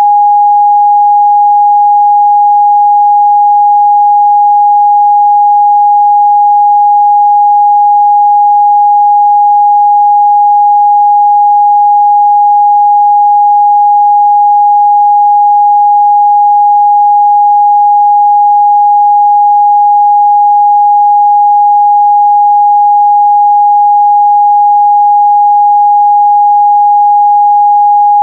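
A steady, loud 824 Hz sine-wave test tone, a single pure pitch held without change.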